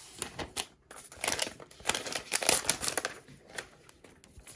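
Packaging crinkling and rustling as it is handled, in irregular bursts that are loudest from about one to three seconds in.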